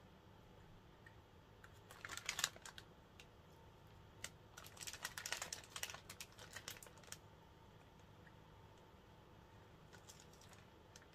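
Faint crinkling and clicking of a plastic snack packet being handled, in short bouts about two seconds in, for a couple of seconds around the middle, and again near the end.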